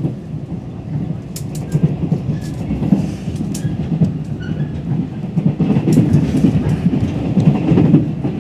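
Passenger train running, heard from inside the carriage: a steady low rumble of wheels on the track with scattered sharp clicks and rattles. It grows louder over the second half.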